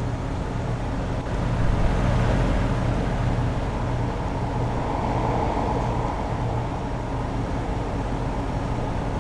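LG Multi V 5 air-conditioning outdoor unit running: a steady machine hum with low steady tones under a broad rushing noise, swelling slightly about two seconds in.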